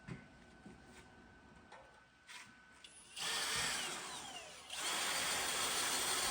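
A few light knocks, then a handheld power tool starts running about three seconds in. It winds down with a falling whine and starts up again, running steadily to the end.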